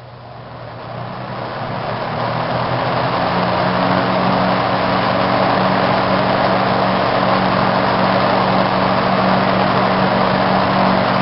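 Sears Roebuck box fan switched to high speed, its plastic blades spinning up over the first few seconds and then running steadily: an even rush of air over a low motor hum.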